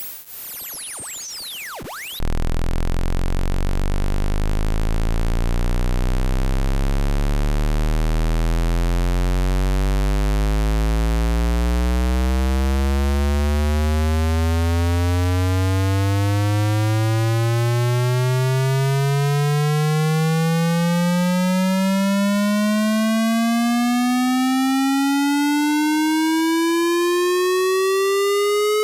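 Synthesized electronic tone: fast sweeping high-pitched chirps for about two seconds, then a loud buzzy tone that starts very low and rises slowly and steadily in pitch.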